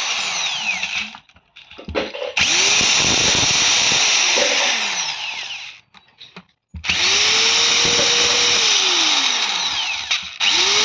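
Angle grinder's electric motor switched on and off several times: each time it whines up to speed, runs for a couple of seconds, then winds down in pitch as it coasts to a stop.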